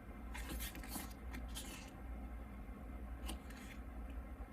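Glossy photobook pages being handled and turned, a few soft paper rustles and slides.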